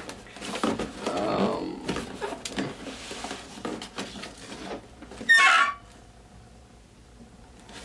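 Cardboard packaging of a PS4 box rustling and scraping as the inner flaps and inserts are pulled about, then one short, loud, high squeak about five seconds in, a grating sound.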